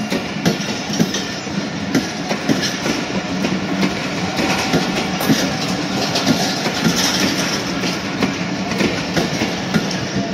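Passenger train coaches rolling past close by, their wheels clacking over the rail joints in a steady run of clicks over a continuous rumble.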